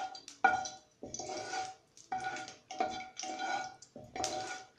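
Wooden spatula scraping back and forth across a non-stick granite-coated kadai through a thin layer of mustard oil as it heats, in a steady rhythm of about one and a half to two strokes a second.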